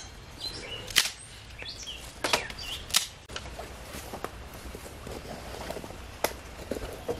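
Sharp hand slaps on skin, swatting mosquitoes. There are several single smacks, the loudest about one second and three seconds in, with lighter ones between them and one more near the end.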